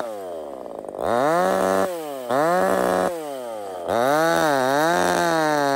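A 25cc two-stroke top-handle chainsaw, a Zenoah/Redmax G2500 clone, revving. Three times its revs fall away and climb back to full speed as the throttle is let off and opened again. Then the pitch sags twice and recovers as the chain bites into the log, and it carries on at high revs.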